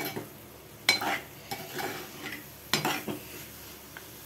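Steel spoon stirring chicken pieces in chilli masala, scraping against the metal pot in a few short strokes about a second apart.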